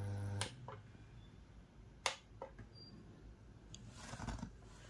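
A steady low electrical hum from the hi-fi cuts off with a click about half a second in, followed by a few separate clicks of front-panel buttons and a control knob on the Pioneer stereo rack, the loudest about two seconds in.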